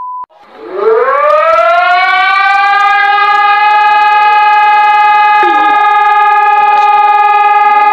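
Civil-defence air-raid siren winding up, its pitch rising over the first two seconds or so, then holding one loud, steady wail. A steady beep cuts off just as it begins.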